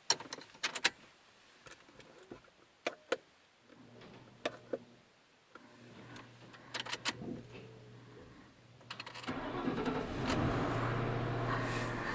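Keys and controls clicking, then about nine seconds in the Panther-platform Ford's 4.6 L V8 cranks, catches and settles into a steady cold-start idle after an overnight cold soak.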